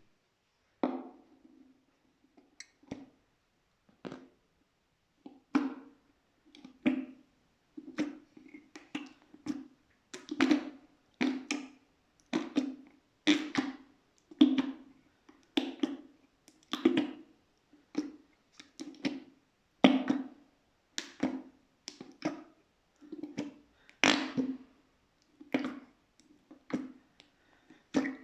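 Glitter slime being pressed and worked by hand, giving a string of sharp squishy pops and clicks, roughly one a second, each with a short low ring.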